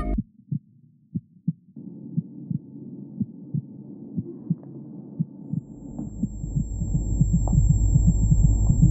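Background music: low thuds like a heartbeat, sparse at first and coming faster and faster, over a hum and a deep bass that swells in about halfway through, growing steadily louder.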